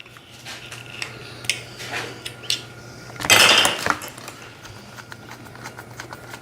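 Scattered clicks and light clatter of small hard plastic toy tools and parts being handled and fitted together, with a louder scraping rustle about three to four seconds in, over a steady low hum.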